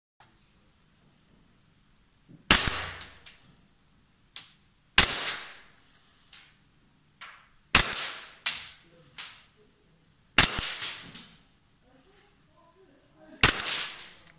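Gas blowback airsoft pistol (Vorsk Glock) firing five single shots about two and a half to three seconds apart. Each is a sharp crack followed by a few fainter clicks and a short echo.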